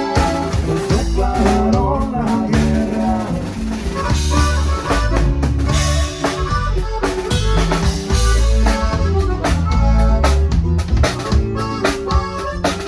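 Live band music: a drum kit keeping a steady beat with rimshots under bass and melody instruments.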